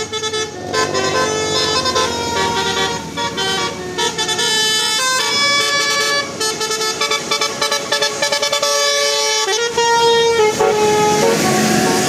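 A bus's telolet Basuri horn playing a tune: a string of loud, held horn notes stepping up and down in pitch.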